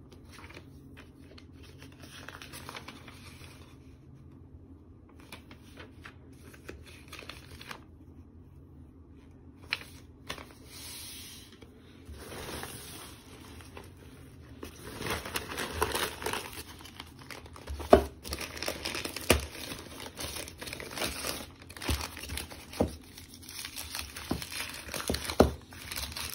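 Paper and plastic rustling as newspaper wrapping is crumpled and pulled off ceramic plates taken from a nylon shopping bag. It is faint at first and grows busy with crinkling about halfway through, with a few sharp clicks in the second half.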